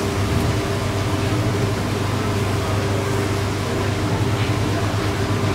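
A steady low machine hum with an even hiss over it, as from a running fan or motor, unchanging throughout.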